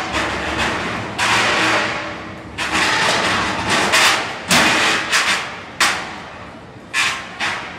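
Combat robots crashing into each other and into the arena walls: a series of about eight irregular hard thuds and metallic hits.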